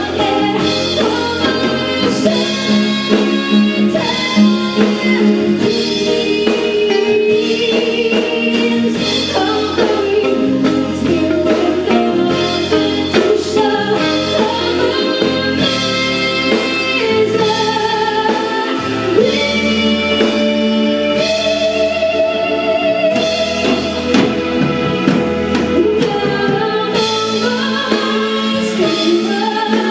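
A woman singing a ballad into a microphone, backed by a live band with electric guitar, drums and keyboard playing continuously.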